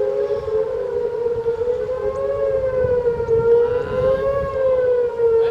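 Outdoor civil defence (tornado warning) siren sounding steadily as the tornado approaches, its wail wavering slowly up and down in pitch about every two seconds.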